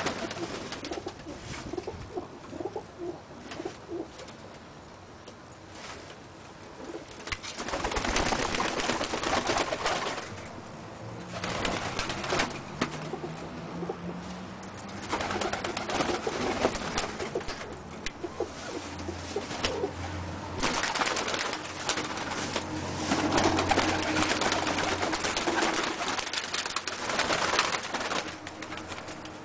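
Pigeons cooing, with scattered clicks and several long stretches of loud rushing, rustling noise.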